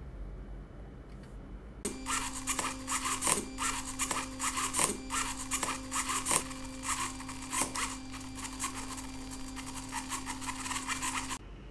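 Small electric motor and gearing of a radio-controlled car running, with a steady hum and a rasping whirr broken by irregular clicks. It starts suddenly about two seconds in and cuts off abruptly near the end.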